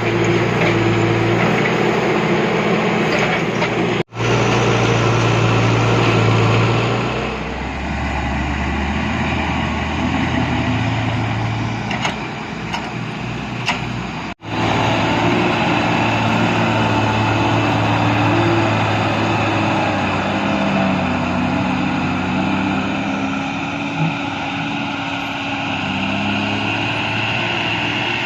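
Diesel engine of a JCB 3DX backhoe loader running steadily, its note shifting as the machine works. The sound drops out for an instant twice.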